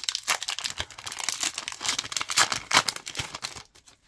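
Foil wrapper of a trading card booster pack crinkling and tearing as it is opened by hand, a dense crackle that stops suddenly about three and a half seconds in.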